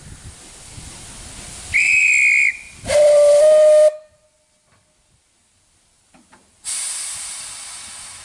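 Narrow-gauge steam locomotive departing: a short high whistle blast, then the locomotive's lower steam whistle for about a second. A few seconds later a sudden loud hiss of escaping steam starts and slowly fades as the engine starts away.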